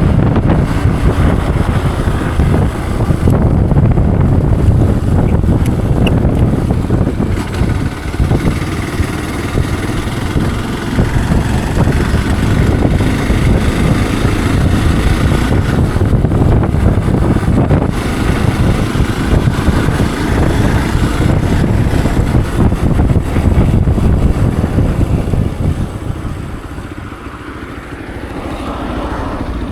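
Motorcycle running under way, with wind buffeting the microphone. It eases off for a few seconds near the end, then picks up again.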